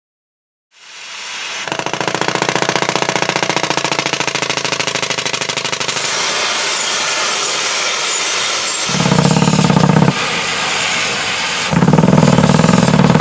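StraightLine pneumatic downhole air hammer for horizontal directional drilling running against rock: a rapid, steady hammering with the hiss of exhaust air, starting about a second in. About nine seconds in the hammering turns louder and deeper, stops for a moment and picks up again.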